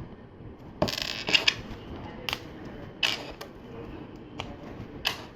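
Plastic LEGO bricks clicking and clattering as pieces are picked up and pressed together, in scattered sharp clicks and short rattles about a second apart.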